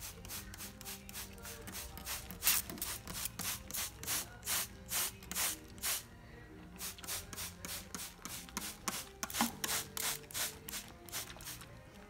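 Rhythmic rasping rubs, about three a second, in two runs with a short break near the middle, over faint background music.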